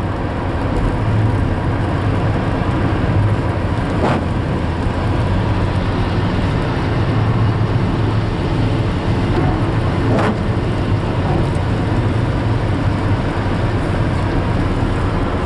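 Steady road and engine rumble inside a moving car's cabin, with two brief clicks or knocks, about four and ten seconds in.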